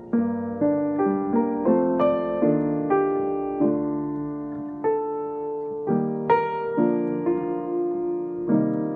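Upright piano being played: a slow tune of single notes and chords struck about every half second, each ringing on as it decays, with a slightly longer pause about four seconds in.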